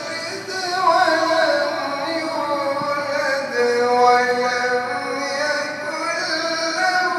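A man's unaccompanied voice chanting Quranic recitation (tilawat) in the melodic tajwid style, with long held notes that slide and turn in pitch without a break.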